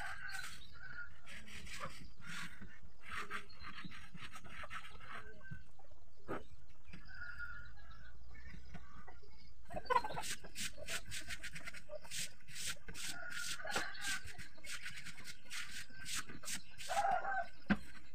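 Quick runs of scratchy strokes as a vinyl-covered floor is cleaned, densest in the second half. A chicken clucks a few times, once about ten seconds in and again near the end.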